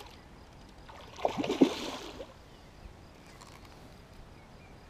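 Hooked pike thrashing and splashing at the water's surface during the fight, one burst of splashing and gurgling about a second in that lasts about a second.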